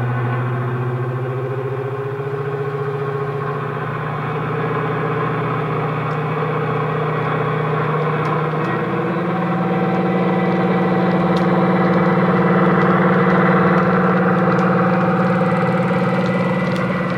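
Sound decoder in a model Class 23 'Baby Deltic' locomotive playing a single Napier Deltic diesel engine sound through a small EM2 speaker, the engine running under power. About eight or nine seconds in, the engine note steps up in pitch and grows louder.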